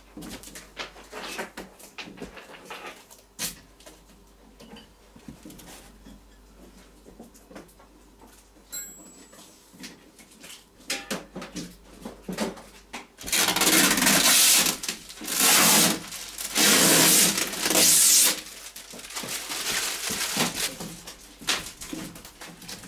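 Scattered clicks and knocks of handling, then several loud bursts of crackling plastic as the protective film is peeled off a plastic windshield.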